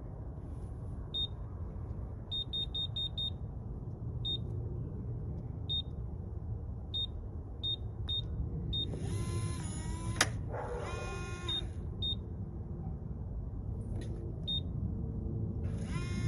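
Electronic keypad of a Veise fingerprint deadbolt beeping with each key press: a string of short, high, unevenly spaced beeps. About nine seconds in, the lock plays a short electronic chime with a sharp click, followed by a second chime, and another chime sounds near the end. A steady low rumble runs underneath.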